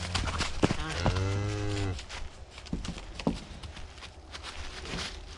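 Cattle mooing: a low, drawn-out call that stops about two seconds in, followed by light rustling in dry fallen leaves.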